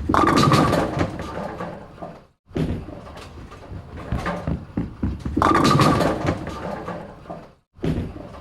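Bowling ball rolling down a lane, in separate takes. A loud rumble right at the start fades over about two seconds, then breaks off. A second roll swells to a loud rumble about five and a half seconds in and fades, and another take begins near the end.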